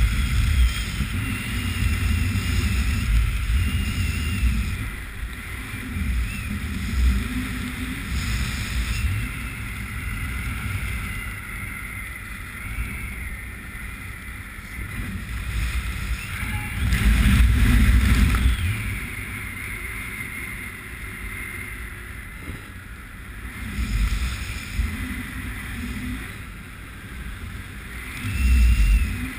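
Wind rushing over the camera's microphone in wingsuit flight: a steady rush with deep buffeting swells, loudest about halfway through and again near the end, over a faint wavering whistle.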